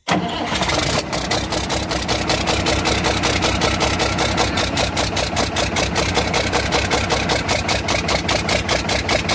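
Cummins 6BT 5.9 six-cylinder diesel engine, warm and running steadily at idle, with a sharp, regular knock of about six strikes a second: the knocking fault the mechanic is showing. The engine sound cuts in suddenly right at the start.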